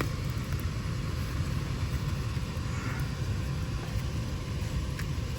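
HVAC air handler's indoor blower fan running steadily with a low rumble, the outdoor condensing unit switched off.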